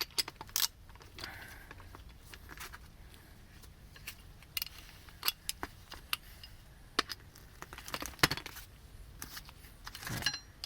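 Irregular metallic clicks and clinks of hand tools, a socket wrench and its socket being handled and set against the brake caliper bracket bolts.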